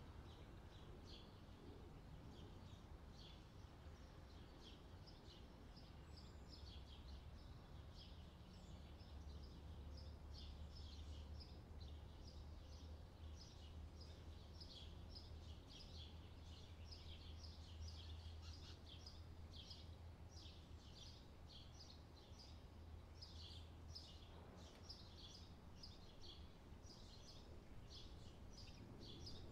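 Faint chirping of small birds, many short chirps in quick succession, over a low steady hum.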